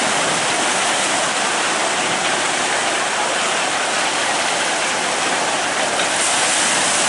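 Log flume water rushing and cascading in a steady, loud rush.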